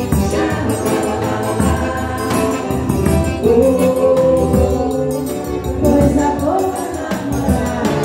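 Live forró music: a Scandalli piano accordion plays the tune over the steady beat of a zabumba bass drum, with light metallic percussion ticking in time.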